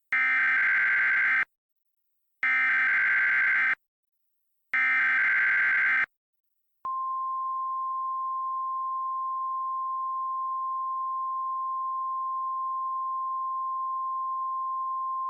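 Emergency Alert System SAME header: three harsh, screeching digital data bursts, each about a second and a half long with short gaps. About seven seconds in, a single steady 1050 Hz NOAA Weather Radio alert tone starts and holds. Together they announce an incoming weather alert, here a winter storm watch.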